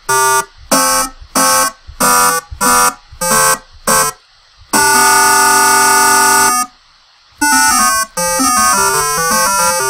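Square-wave (pulse) oscillators in a six-voice Max 8 software synth patch playing notes. First comes a run of short separate notes, about two a second, then a chord held for about two seconds. After a brief gap, overlapping notes of changing pitch follow.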